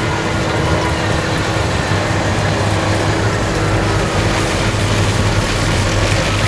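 Claas Jaguar self-propelled forage harvester on tracks running under load while chopping maize, together with the diesel engine of a tractor pulling a silage trailer alongside. A steady, dense machinery noise with a low hum underneath.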